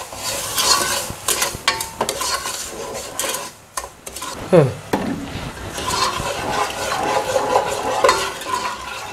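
Wooden spoon stirring sugar and a little water in a nonstick pot, scraping across the pot base in irregular strokes as the sugar dissolves for a sugar syrup. A single short falling squeak about halfway through is the loudest moment.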